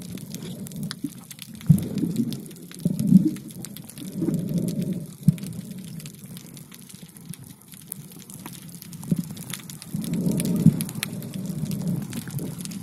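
Muffled underwater water noise picked up by a submerged camera: surges of sloshing and bubbling that swell and fade every second or two, with scattered sharp clicks.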